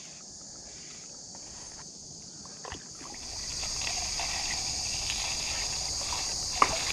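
Steady high-pitched insect chorus, louder from about three seconds in, with a couple of short knocks about three and seven seconds in.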